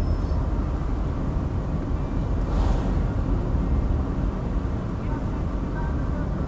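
Small car driving slowly, heard from inside the cabin: a steady low rumble of engine and tyres on the road, with a brief hiss about two and a half seconds in.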